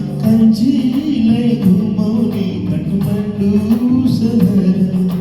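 Music: the closing bars of a Nepali song, a man's singing voice with instrumental backing.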